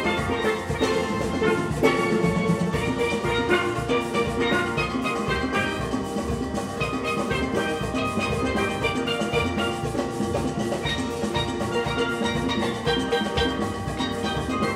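Large steel band playing: many steel pans sounding melody and chords together over a steady drum beat.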